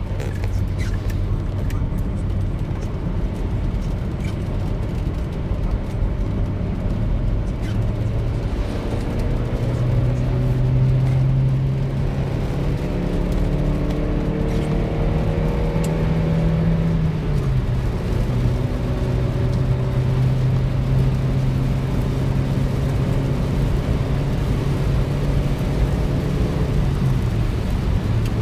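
Car engine and tyre noise heard from inside the cabin while driving on a wet road. The engine note climbs slowly through the middle, drops suddenly about two-thirds of the way in, then holds steady.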